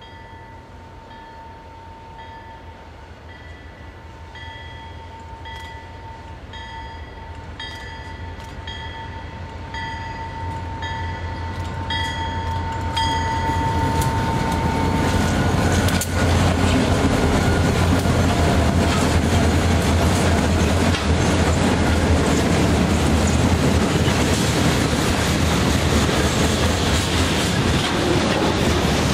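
A bell dings in a steady repeating rhythm, typical of a road-crossing bell, while a Canadian Pacific freight train's diesel locomotives approach with a growing rumble. The locomotives pass about halfway through, and the freight cars then roll by with wheels clacking over the rail joints.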